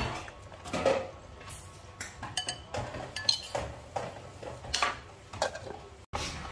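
A spoon, a bowl and duck eggs clinking and knocking against a metal cooking pot as the eggs are tipped in, in a quick run of separate clinks. A glass pot lid is set on near the end.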